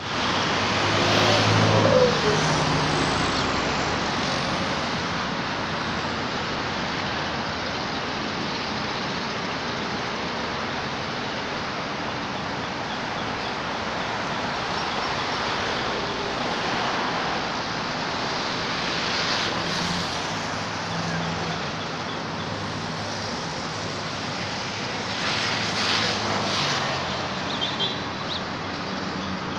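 Steady road traffic noise, swelling now and then as vehicles pass, loudest about two seconds in.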